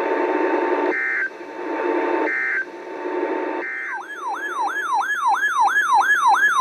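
Emergency Alert System end-of-message data: three short buzzy digital bursts about a second apart over radio static, marking the end of a flash flood warning. Right after the third burst, a siren-like alert tone starts, warbling up and down about twice a second.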